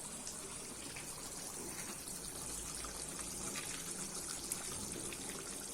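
Mint chicken curry bubbling as it cooks in the pot: a faint, steady hiss with a few soft pops.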